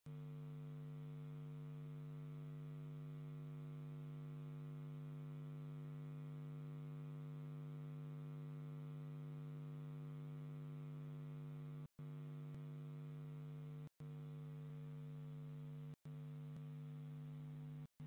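Steady electrical hum on a nest-box camera's audio line: one low, unchanging drone with many overtones. From about two thirds of the way in, the sound cuts out for an instant about every two seconds.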